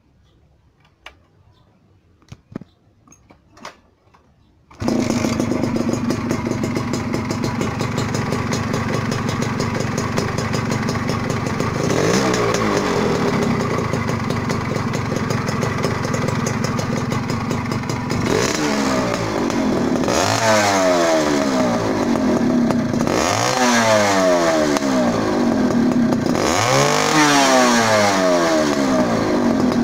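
Suzuki Tornado GS single-cylinder two-stroke motorcycle engine, fitted with a DSK Neomax unlimiter CDI, begins abruptly about five seconds in and runs steadily. It is then revved by repeated throttle blips, each rising and falling back, about every two seconds near the end.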